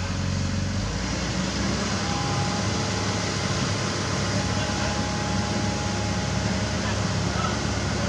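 Komatsu PC195LC excavator's diesel engine running steadily under hydraulic work as the bucket digs; the engine note shifts about a second in, and a faint whine sounds for a few seconds in the middle.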